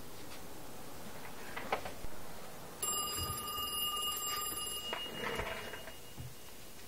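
A USTel Model 5 rotary dial telephone's bell ringer rings once for about two seconds near the middle, signalling an incoming call.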